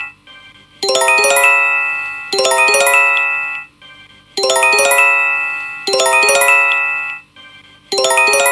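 Electronic alarm chime of a seismic-alert drill: a quick run of bell-like notes struck in fast succession and left to ring and fade. It sounds twice in a row, pauses briefly, and repeats about every three and a half seconds.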